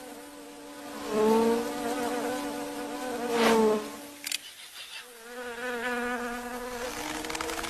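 Insect buzzing: a wavering drone that swells loudly twice, as if flying close past, then settles into a lower, steadier buzz.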